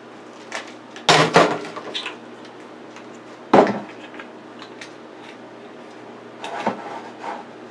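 Kitchen utensils and containers knocking and clattering as they are handled and set down: a cluster of knocks about a second in, one sharp knock in the middle, and a few lighter knocks near the end.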